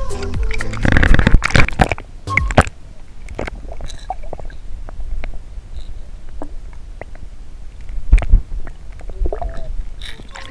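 Water splashing around a hooked largemouth yellowfish at the river's surface, then muffled underwater gurgling with scattered small clicks, heard from below the surface. A louder low splash comes about eight seconds in.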